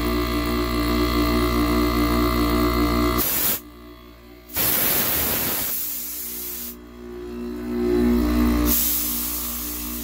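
Home-built air compressor made from an air-conditioner compressor, running with a steady electric hum. Over it come bursts of air hissing from a blow gun: a short one about three seconds in, a longer one of about two seconds around five seconds in, and another near the end.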